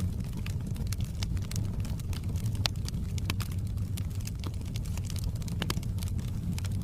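Wood fire crackling: irregular small pops and clicks over a steady low rumble, with two sharper snaps, one a little under three seconds in and one near the end.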